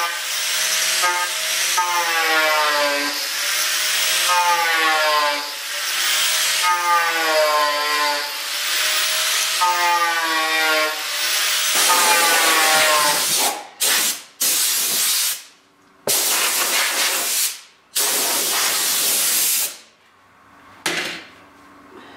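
Angle grinder with a 100-grit sanding disc running against foam, its motor whine repeatedly dipping and recovering under the hiss of the disc. About twelve seconds in it stops, followed by about five short blasts from a compressed-air hose.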